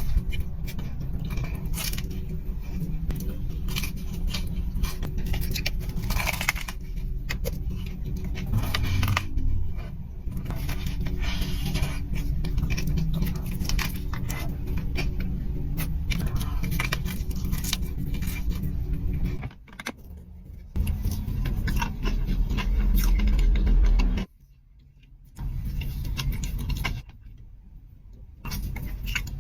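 Small clinks and scrapes of eating utensils against dishware, many short clicks over a steady low hum. The sound cuts out abruptly a few times in the last ten seconds.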